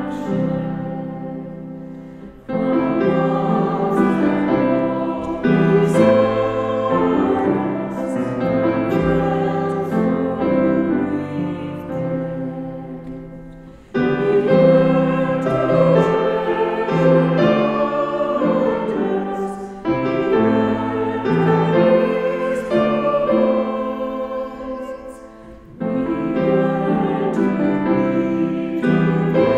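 Hymn sung by voices with piano accompaniment. Each phrase dies away and the next starts abruptly, three times.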